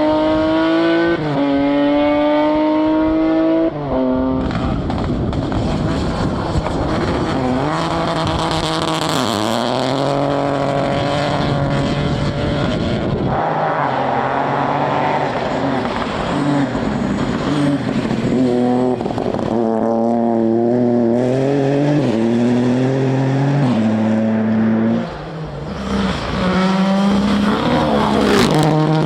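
Rally car engine revving hard: the pitch climbs and drops at upshifts about a second and four seconds in. The engine then rises and falls repeatedly through the corners, with a short lift off the throttle near the end before it revs up again.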